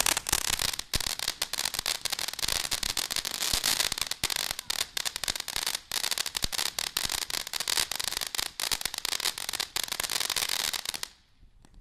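Ground fountain firework spraying sparks: a steady hiss packed with rapid crackling pops, cutting off abruptly about eleven seconds in as it burns out.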